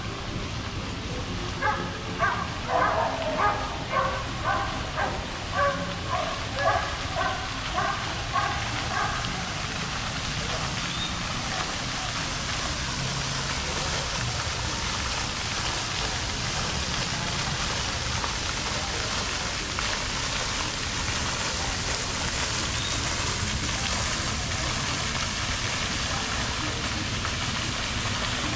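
A dog barking repeatedly, about two barks a second, for the first nine seconds or so, over a steady rushing hiss that then continues alone.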